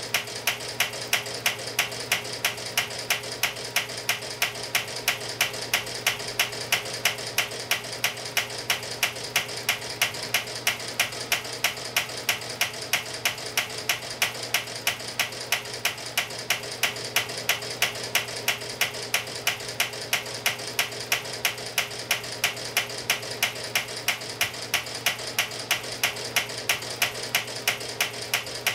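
Homemade single-cylinder flywheel engine being turned over by an electric motor on a belt, with a sharp click repeating about twice a second over the motor's steady hum. The engine is firing weakly and trying to start but cannot run on its own, which the builder puts down to low compression.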